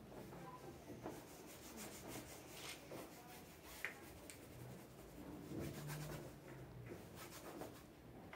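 Faint scrubbing strokes of paint being rubbed onto a canvas, in runs of quick strokes, with one sharp tick about four seconds in.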